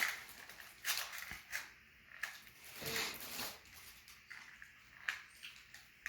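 Pieces of a DIY dinosaur puzzle kit being handled and fitted together: a few short rustling bursts in the first few seconds, then faint light clicks.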